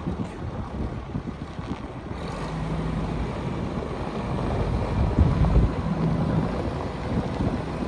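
Deutz DX 130 front-wheel-assist tractor's air-cooled diesel engine running as the tractor drives slowly, with wind buffeting the microphone.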